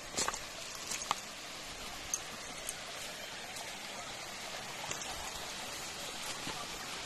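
Steady rush of water running over rocks in a shallow mountain stream below a waterfall, with a few light clicks in the first second or so.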